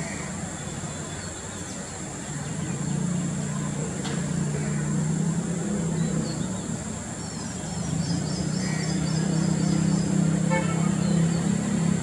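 A steady low engine drone, like a motor vehicle running nearby, growing louder after about 8 s, with faint high chirps of small birds and a steady high whine.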